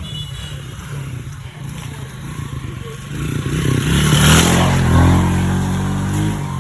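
A small engine running and passing close by. It grows louder from about three seconds in, is loudest around four to five seconds, then eases off.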